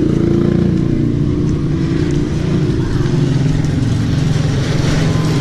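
A motor vehicle's engine running steadily, a constant low drone.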